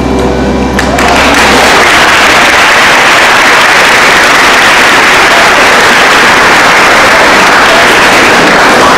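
Audience applauding loudly, starting about a second in and holding steady.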